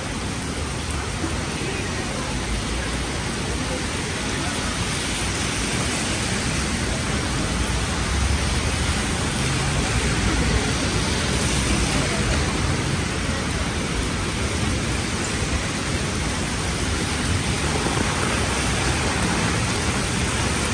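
Steady rain falling in a city street: a loud, even hiss with no breaks.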